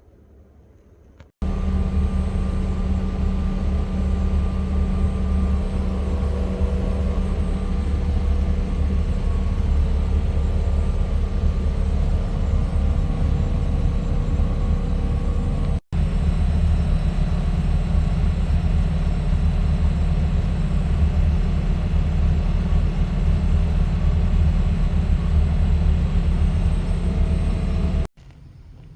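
A loud, steady machine drone, heavy in low hum with a few steady tones above it, that starts abruptly about a second in, breaks off for an instant midway, and stops abruptly near the end.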